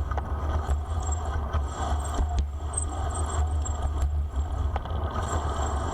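Wind buffeting the microphone with rushing road and tyre noise as a bicycle rolls fast downhill, with a few light clicks from the bike.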